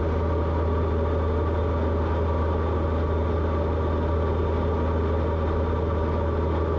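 Steady drone of a light aircraft's piston engine and propeller in cruise, heard in the cockpit.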